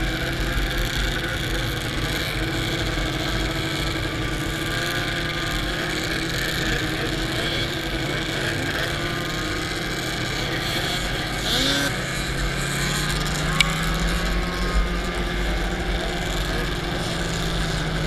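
Snowmobile engine running steadily under the rider, heard from the sled's own hood with noise from the ride, its pitch rising slightly about two-thirds of the way through. A single short click sounds shortly after.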